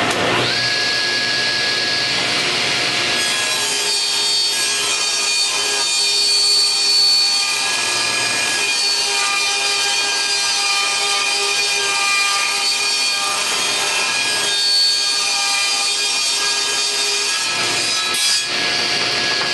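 Table saw fitted with a ripping blade, spinning at full speed, then ripping a length of wood from about three seconds in until near the end, when the blade runs free again with a steady whine.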